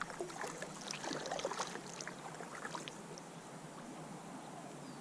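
Water splashing and lapping, with scattered small splashes and clicks through the first three seconds, then a faint steady hiss.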